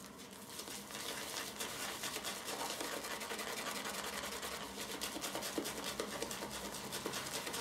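Shaving brush whipping shaving-soap lather round a hand-held lathering bowl in rapid, even strokes, working in water just added to build the lather.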